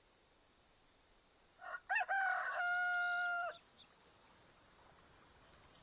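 A rooster crows once, one call about two seconds long. Before it come a few high, evenly repeated cricket chirps.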